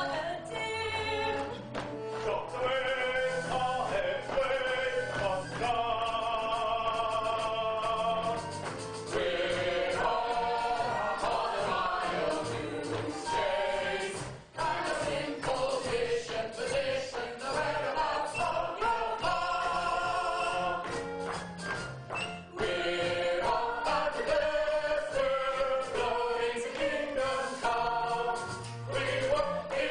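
A chorus of voices singing a musical-theatre number over instrumental accompaniment, with held notes and a steady bass line.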